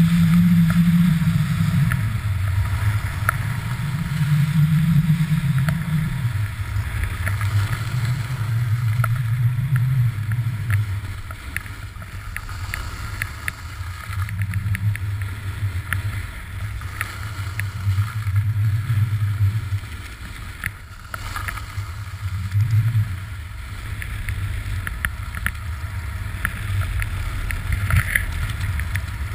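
Wind rumbling on the microphone of a pole-mounted GoPro and the snowboard sliding over packed snow, with many small clicks and scrapes. The low rumble swells and eases in waves and is strongest in the first few seconds.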